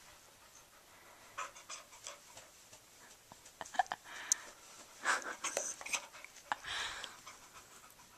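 Mixed-breed dog panting in uneven breaths, with a few sharp clicks about halfway through.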